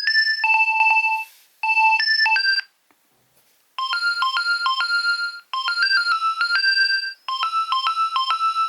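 Nokia 2300 mobile phone playing its ringtones: one melody of quick high notes ends a little under three seconds in, and after about a second of silence the next ringtone starts, a short phrase played over and over with brief breaks between.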